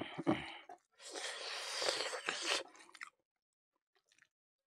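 Close-miked eating sounds: a person chewing a mouthful of rice and pork, with wet mouth noises. They come in two bouts, a short one at the start and a longer one from about a second in, then fall quiet about three seconds in.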